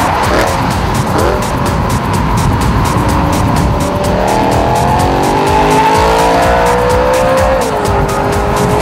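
BMW E92 M3's 4.0-litre V8 running through a stainless cat-back mid pipe and stock muffler, accelerating hard. The pitch climbs steadily for a few seconds, then drops sharply at an upshift near the end and holds steady.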